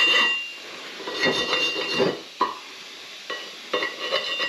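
Wire pipe-cleaner brush scrubbing along the gasket groove of a cast-iron wood stove door: a few short scraping strokes, with light clicks between them.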